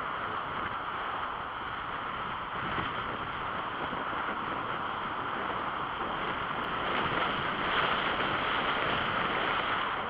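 Steady rush of wind over a helmet camera's microphone on a moving bicycle, with road noise, a little louder near the end.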